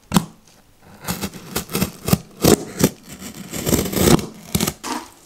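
Stanley utility knife slicing through packing tape and cardboard: a sharp click just after the start, then an irregular run of short scraping, tearing strokes as the blade is drawn along the box seams.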